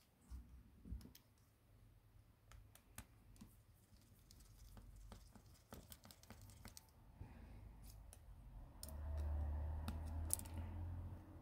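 Faint, scattered clicks and light taps of small hand tools on a smartphone being taken apart, with a low steady hum joining about nine seconds in.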